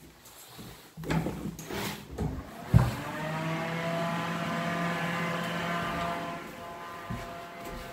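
A sharp click about three seconds in, then a small electric fan motor spins up and hums steadily, like a toilet room's extractor fan switched on with the light.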